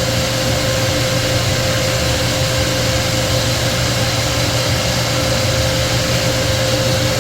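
Refrigerant recovery machine running steadily: a constant mid-pitched tone over a low hum, as refrigerant is pulled out of the freezer's system.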